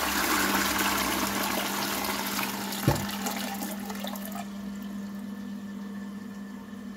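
Toilet flushing: water rushes through the bowl and steadily fades to a quieter refill trickle as the flush ends. There is a single knock about three seconds in, and a steady low hum underneath.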